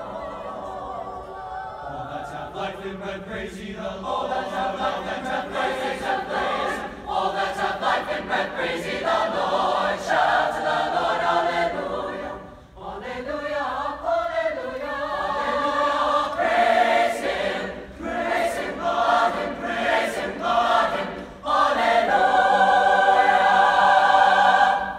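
Mixed high school concert choir singing in phrases, swelling into a loud held final chord over the last few seconds that is cut off together.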